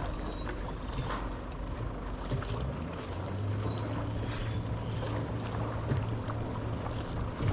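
A boat's motor hums low and steady on the river, coming in about three seconds in and stopping near the end. It sits over a background of water and wind noise, with scattered light clicks and a few faint high chirps.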